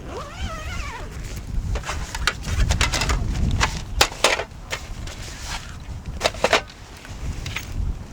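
A cat gives one short, wavering meow, followed by a run of sharp knocks and clatters, with wind rumbling on the microphone throughout.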